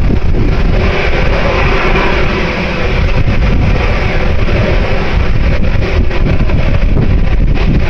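Wind buffeting the microphone with a loud low rumble, and a steady droning tone of several pitches running through it for a few seconds.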